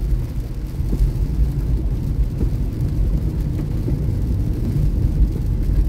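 Steady low rumble of a car driving on a wet road in the rain, heard from inside the car.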